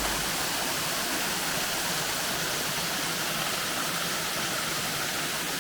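Rainforest waterfall rushing, a steady even roar of falling water.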